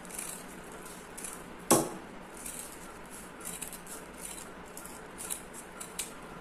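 Scissors snipping repeatedly along a strip of velcro tape, cutting it lengthwise down the middle in a run of short, crisp snips. One sharper, louder click comes nearly two seconds in.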